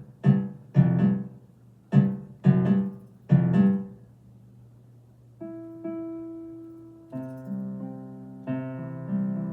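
Roland FP-30 digital piano playing one of its built-in non-piano voices. About six chords are struck in the first four seconds, each dying away quickly like plucked strings. From about five seconds in come softer, longer-held notes that overlap one another.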